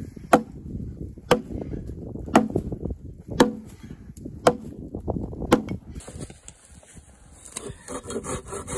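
An axe chopping into a log: six sharp strikes about a second apart. Near the end, quicker rasping strokes of a hand saw on the same wood begin.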